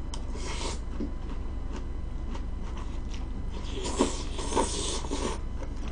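Close eating sounds: chewing a mouthful of leafy sprout salad, with scattered small clicks, a short stretch of crisp crunching near the start and a longer one about four seconds in.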